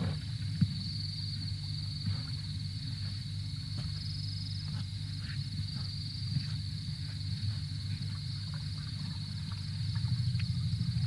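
Night insect chorus of crickets: a steady, high, pulsing trill, over a low steady drone, with scattered soft clicks and snaps.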